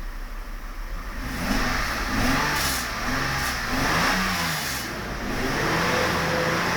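Mercedes 600SEL's 6.0-litre V12 revved up and down several times, then held at a steady raised speed near the end. It is misfiring, with two cylinders (7 and 10) cut out by the engine control.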